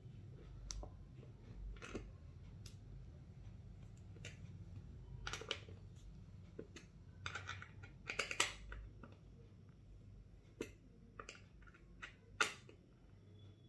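Faint scattered clicks and short scrapes of a hex key turning bolts through an office chair's plastic armrest bracket, with handling rustles; the loudest clicks come about eight seconds in.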